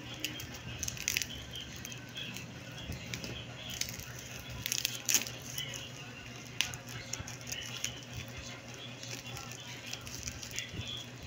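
Plastic parcel wrapping and clear packing tape crinkling and rustling as it is handled and pulled. Scissors cut through the tape and plastic toward the end, with scattered sharp clicks and snips.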